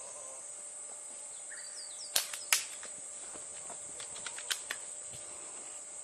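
Steady high insect drone over a grassy field, broken by sharp cracks of airsoft gunfire: two loud ones about two seconds in, then a quick cluster of lighter ones a couple of seconds later.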